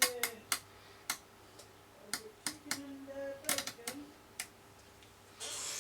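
Sharp irregular clicks of the York 861 CB radio's rotary channel selector being turned through its detents, over a faint steady hum, with a short burst of hiss near the end.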